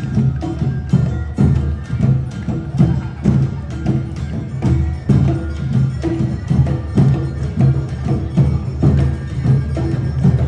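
Awa Odori festival band (narimono) playing: drums and a struck metal bell keeping a steady, driving rhythm, with a held melody line above.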